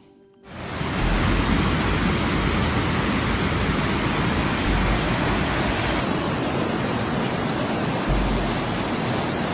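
Loud, steady rushing of water, an even noise without let-up, setting in about half a second in; its top end shifts slightly around six seconds in.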